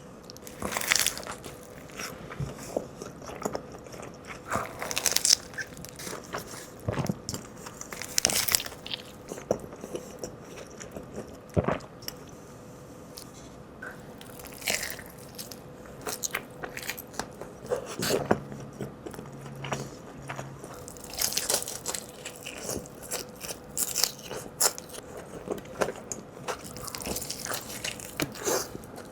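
Close-up eating sounds: a person biting into and chewing Shake Shack fast food, a burger among it, with crisp crunches coming at irregular moments.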